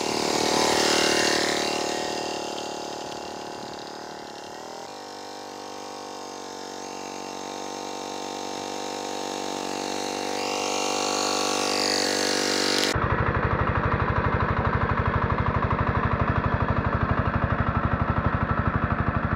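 Scout T-12 minitractor's single-cylinder diesel running under load while its rotary tiller churns the soil, swelling loud as it passes close in the first couple of seconds. About two-thirds of the way through the sound changes abruptly to a heavier, steady, evenly pulsing engine note.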